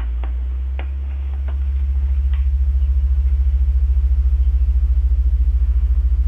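Loud low electrical mains hum from a light dimmer switch running a mercury vapour lamp underpowered. It comes on suddenly as the dimmer is switched on, swells over the first two seconds as the knob is turned up, then holds steady with a fast pulsing ripple, with a few light clicks from the knob near the start.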